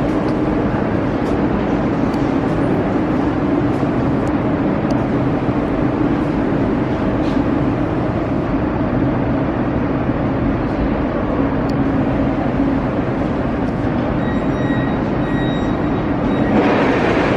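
Siemens Inspiro metro train running between stations, heard from inside the car: a steady rumble of wheels on rails and traction equipment, with a faint high whine joining about fourteen seconds in.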